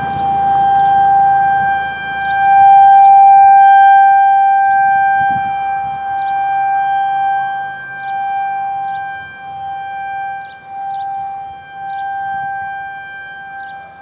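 Outdoor tornado warning siren, a rotating Federal Signal 2001, sounding a steady alert tone during a test. The pitch holds level while the loudness swells and fades every couple of seconds as the horn turns.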